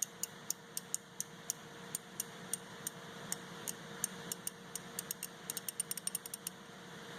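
Stanley black chrome 120-tooth, half-inch-drive ratchet clicking as it is turned back and forth, the pawl ticking over the fine teeth. Separate clicks come about three a second, quicken into a fast run near the end, then stop.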